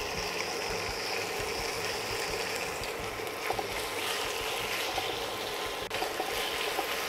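Thin slices of raw chicken breast sizzling in hot olive oil in a wok: a steady frying hiss with a few faint crackles.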